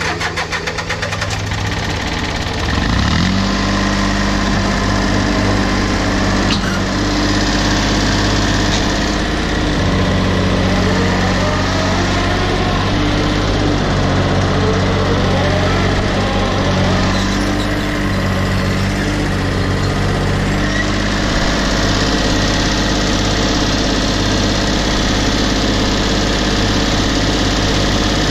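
Case 235 compact tractor's diesel engine running under way. The revs climb about two to three seconds in, then hold steady with small shifts in pitch.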